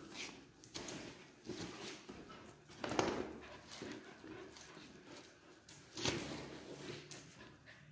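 A dog making short, scattered sounds, the loudest about three seconds in and again about six seconds in.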